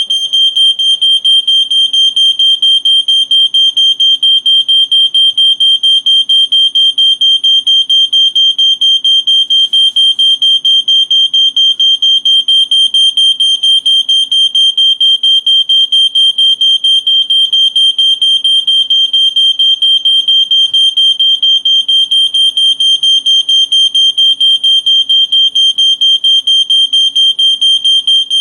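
Household smoke alarm going off, sounding a loud, high-pitched beep that repeats rapidly and evenly without a break. It has been set off by smoke from cooking.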